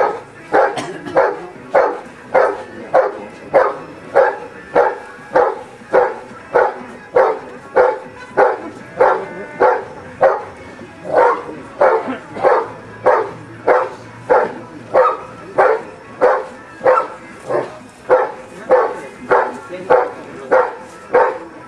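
Briard barking steadily and evenly, about three barks every two seconds, at a helper held in a hide: the hold-and-bark of IPO protection work.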